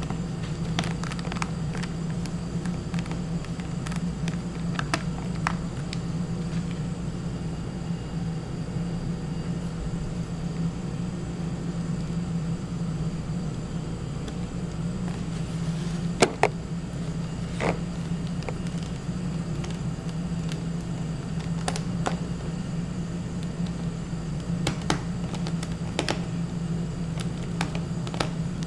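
Small clicks and light taps, scattered a few seconds apart, from a hand screwdriver turning small screws into a laptop screen's metal mounting brackets, with one sharper click about two-thirds of the way through. A steady low hum runs underneath.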